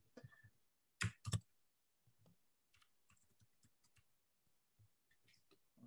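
Two sharp clicks about a third of a second apart, about a second in, then faint scattered ticks: clicking at a computer's mouse and keys, otherwise near silence.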